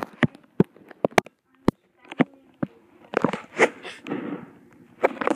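Handling noise from a phone's built-in microphone: a scatter of sharp clicks and knocks as the phone is moved and gripped, with a stretch of rubbing and rustling a few seconds in.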